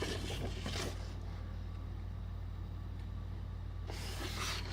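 Faint rustling of a paper colour-scheme poster being handled, over a steady low electrical hum.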